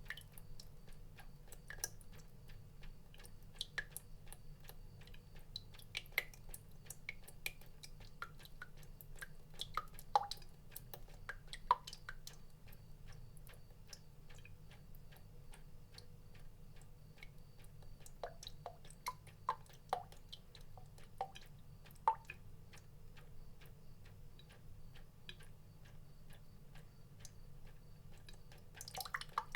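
Water drops falling at an irregular rate, each a short plink, some higher and some lower in pitch. The sharpest drops land about 12 s and 22 s in, over a faint steady low hum.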